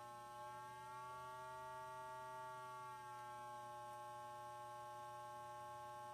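A loudspeaker plays a steady electronic buzzing tone with many overtones, vibrating a bowl of water set on its cone. The pitch drifts slightly upward about a second in and settles back down near three seconds in, over a faint low hum.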